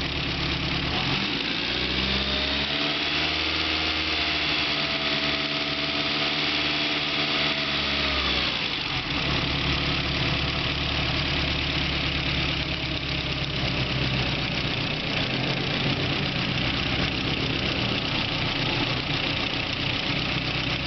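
BMW E30 M3's S14 four-cylinder engine running with the ticking noise it is being checked for. It idles, is revved up about a second in and held there for several seconds, then drops back to idle at about 9 seconds.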